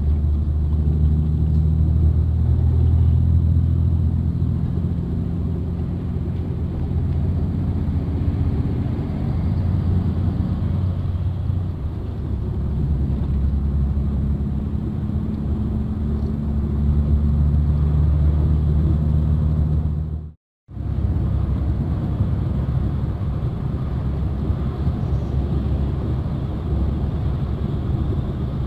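Bus engine and tyre noise heard from inside the cabin at highway speed: a steady low drone with an engine hum that sags in pitch for a few seconds near the middle, then comes back. The sound cuts out completely for about half a second around twenty seconds in.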